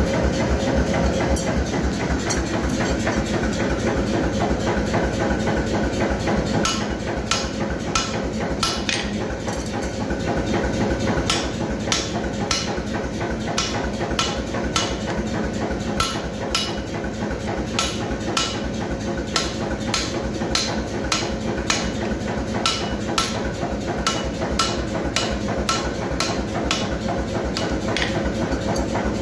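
Hand hammer striking a hot steel bar in a swage on the anvil to shape an acorn head: an even run of blows, about two a second, starting about seven seconds in. Under it, the steady noise of a propane gas forge running.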